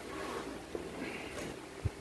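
Faint handling sounds: a soft rustle as a black carrying case is picked up, with a light bump near the end.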